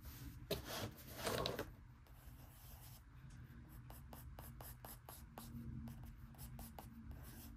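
Blue coloured pencil scratching lightly on sketchbook paper in many short strokes, with a brief louder rustle about a second in.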